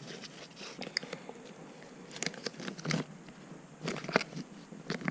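Faint, scattered crinkles and clicks of packaging being handled while a bike multi-tool is unboxed.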